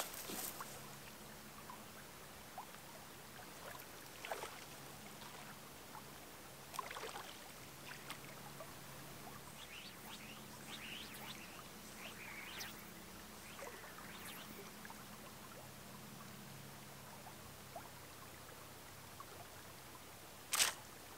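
Faint trickle of a small, shallow stream, with a few soft knocks and a sharp click near the end.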